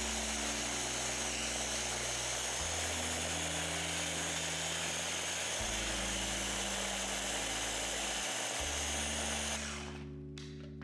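Ninja pod-style blender motor running steadily, its blades churning a thick frozen-fruit and spinach smoothie, and cutting off about nine and a half seconds in. Soft background music plays underneath.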